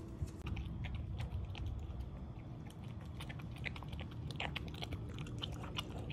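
Cavalier King Charles Spaniel eating kibble coated in a wet slurry from a bowl. Starting about half a second in, there is a quick, irregular run of crunches and clicks as she chews.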